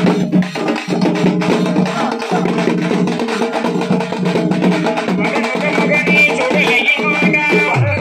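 Live festival drumming on a barrel drum and a hand-held frame drum: dense, continuous strokes over a steady low drone. A high, wavering melodic line joins about five seconds in.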